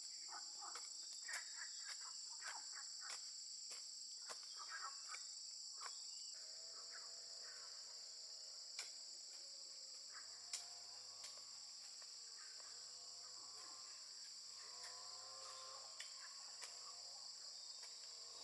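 Steady chorus of insects, a constant high shrill. Scattered clicks and knocks sound in the first six seconds or so. After a change about six seconds in, faint wavering tones come and go beneath it.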